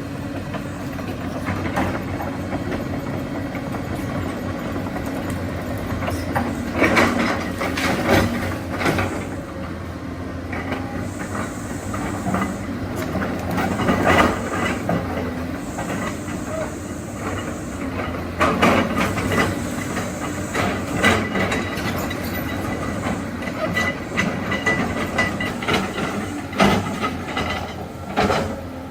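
Tracked earthmoving machinery working: a diesel engine runs steadily under bursts of metal clanking and clatter from the tracks and blade or bucket, heard about seven times. There are two short hisses in the middle.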